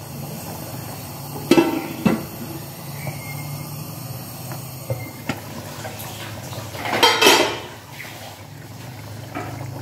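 Aluminium cooking-pot lid clanking as it is set onto the pot, two knocks about one and a half and two seconds in. A louder scraping rush comes about seven seconds in as the lid is lifted off the simmering curry. A steady low hum runs underneath.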